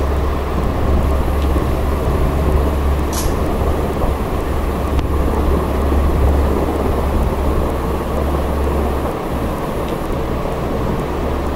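Steady low rumbling noise, dipping briefly near the end.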